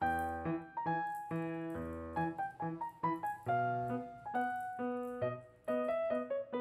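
Background piano music: a melody of quick struck notes over sustained chords.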